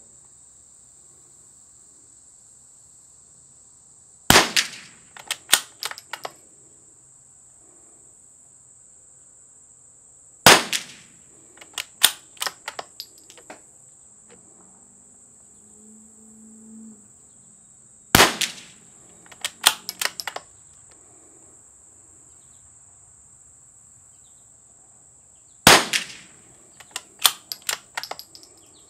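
Four shots from a CZ 455 .22 LR bolt-action rifle fitted with a Harrell barrel tuner, about six to eight seconds apart, each followed within a second or two by a quick run of metallic clicks as the bolt is worked. A steady high insect buzz runs underneath.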